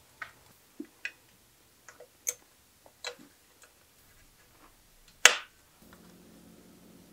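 Irregular light clicks and ticks of small metal bike parts and tools being handled at a workbench, with one much louder sharp click about five seconds in. A low steady hum starts soon after.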